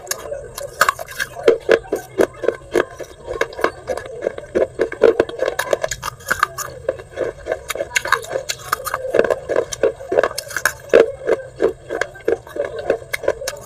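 Fired clay pot shards being bitten and chewed: a dense, irregular run of sharp crunches, several a second.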